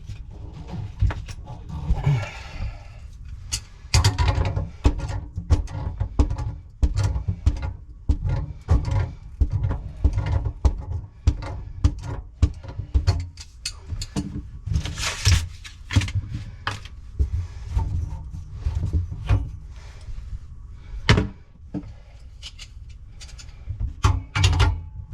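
Hand tools working on the heater's plumbing fittings: irregular metal clicks, knocks and thuds, with short scraping or rasping passages about two seconds in and again near the middle.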